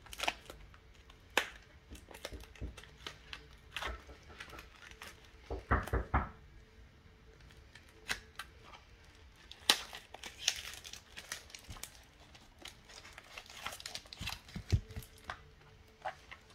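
Plastic shrink-wrap on a trading-card theme deck box being torn and crinkled as the box is opened and its contents are taken out. Scattered small clicks and rustles, with a few louder knocks about six seconds in and a sharp one near ten seconds.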